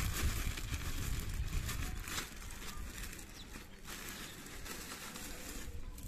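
Clear plastic bag of fried snack noodles crinkling and rustling as it is handled, over a low rumble.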